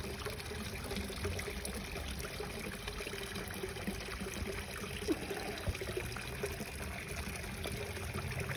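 Water trickling and pouring steadily into a garden koi pond, with a faint steady hum beneath it.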